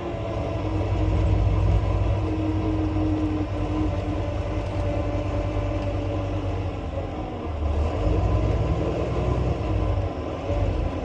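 Volvo B9 bus running on the move: a low engine and drivetrain rumble with a thin whine on top that drifts slightly up and down in pitch.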